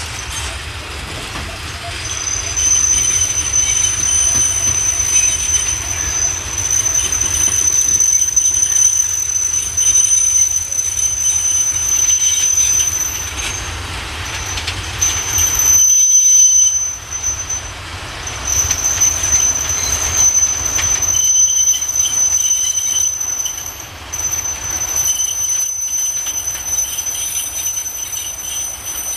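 Steel wheels of a slow-moving heavy coal train squealing against the rails: a loud, high-pitched, sustained squeal that breaks off briefly a few times, over the train's low rumble.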